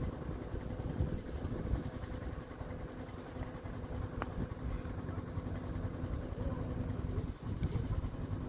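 Strong wind buffeting the microphone: a low, fluttering rumble, with a few faint clicks.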